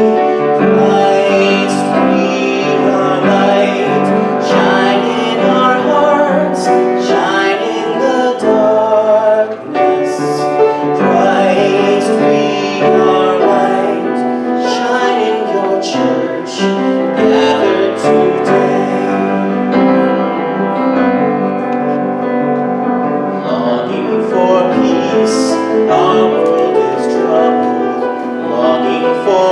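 A solo voice singing a church hymn, with instrumental accompaniment.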